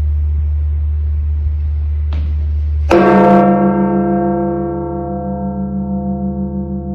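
The Campana Mayor, the great bell of Mexico City's Metropolitan Cathedral, tolled once in mourning: a sharp strike about three seconds in, then a long ring of many tones with a pulsing, wavering hum, slowly fading. Before the strike there is a steady low hum.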